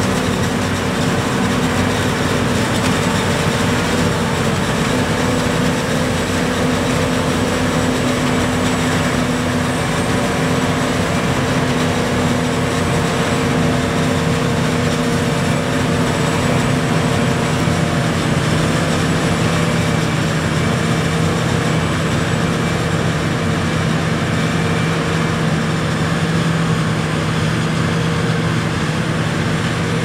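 John Deere self-propelled forage harvester running under load while chopping standing maize: a steady heavy engine drone with several steady hum tones over a broad rushing noise. About halfway through, a lower hum takes over from the main one.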